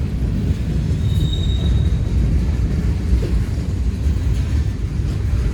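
Freight train rolling past: a steady heavy rumble of wheels on the rails, with a brief high-pitched squeal of a wheel on the rail about a second in.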